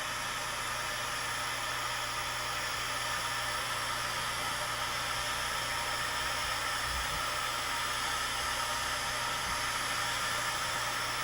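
Electric heat gun blowing steadily with a low hum, heating epoxy-saturated fiberglass matting on a plastic radiator tank repair to start the epoxy's cure.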